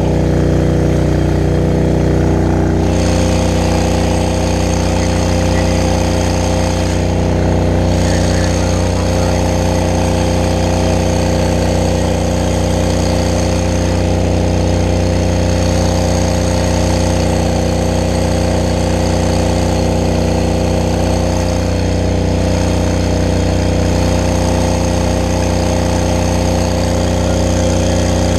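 Fire brush truck's engine running in a loud, steady drone, heard close up from the truck's rear deck.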